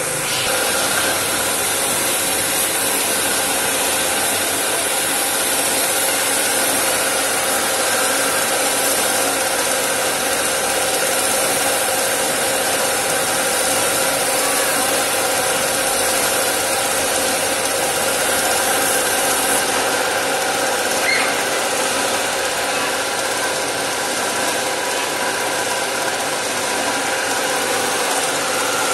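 Compressed air hissing steadily from a gravity-feed paint spray gun as it sprays paint onto a car's body panels, over a steady machine hum.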